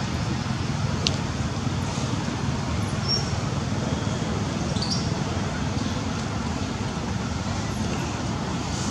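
Steady low rumbling outdoor background noise, with a few faint short high chirps and a brief click about a second in.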